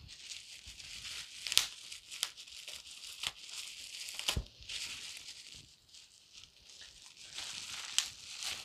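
Packaging being torn open and crinkled by hand: a steady rustling with a few sharp clicks and snaps scattered through it.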